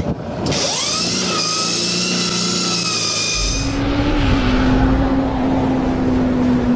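High electric-motor whine of an electric drag bike, with several stacked pitches that rise and then hold, cut off about four seconds in. Then a deep rumbling motorcycle-engine sound effect with a steady hum.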